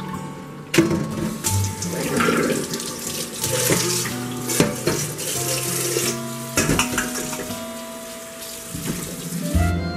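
Water pouring out of a metal bowl and running from a tap into a stainless steel sink over sunflower seeds in a metal colander, with a few sharp knocks of the metal bowls. Soft background music runs underneath and grows louder near the end.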